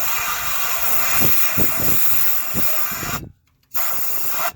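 Compressed-air blow gun hissing down the spark plug hole of a Honda GX240 engine, blowing packed dirt out of the cylinder that is keeping the piston from turning over. The air cuts off a little past three seconds in, starts again about half a second later, then stops near the end.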